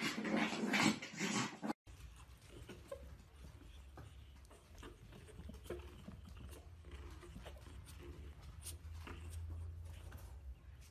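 Chihuahuas growling as they play-fight, loud for about the first two seconds. After an abrupt cut, a much quieter passage follows: faint rustling and scattered small clicks over a low hum, with a few faint short sounds from a puppy playing on bedding.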